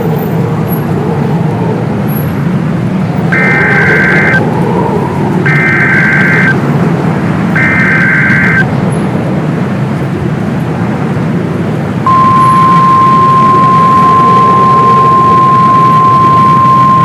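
Emergency Alert System tones: three SAME header data bursts, each a harsh buzzing screech about a second long, then, about twelve seconds in, the steady single-pitched NOAA Weather Radio 1050-hertz warning alarm tone. A steady low rumbling drone runs underneath.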